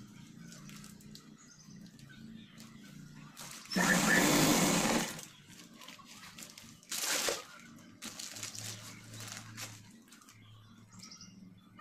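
Sewing machine stitching in a run of about a second and a half, then a brief spurt a few seconds later.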